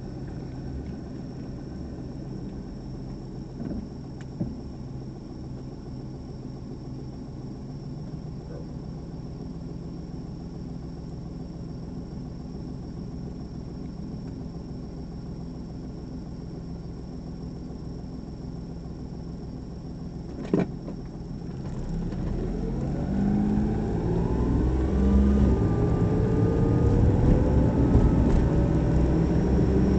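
A car's engine idles steadily, heard from inside the cabin, while the car waits at a red light. A sharp click comes about two-thirds of the way in. The car then pulls away, and the engine note climbs and grows louder as it accelerates.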